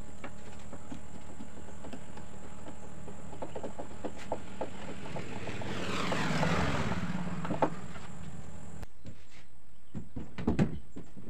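A passing engine swells and fades about six to seven seconds in, over a steady hum and light clicks of a hand screwdriver working into a plywood deck. After a cut, a few sharp wooden knocks as plywood strips are set in place.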